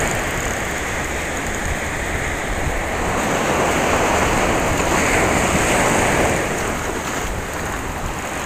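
Ocean surf breaking and washing up a sandy, rocky beach: a steady rush of whitewater that swells and eases as the waves come in.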